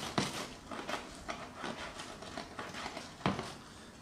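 Metal kitchen tongs clicking and scraping against a stainless steel wok as linguine is tossed and mixed in the pan: irregular light taps, with one louder knock about three seconds in.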